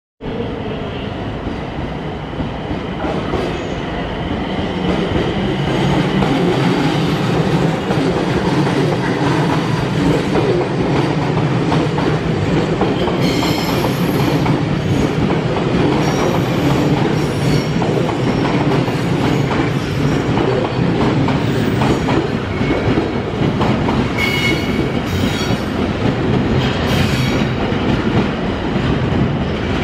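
A train running along the track, a steady loud rumble with brief high wheel squeals about halfway through and again near the end.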